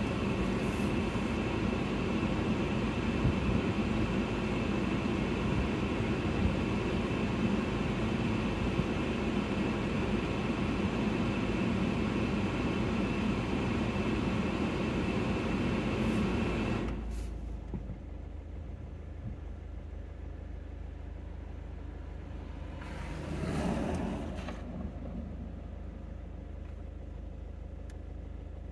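Steady running noise of a stationary car, its engine idling with the cabin fan blowing, which cuts out abruptly about 17 seconds in and leaves a low steady hum. A brief swell of noise rises and fades about 23 seconds in.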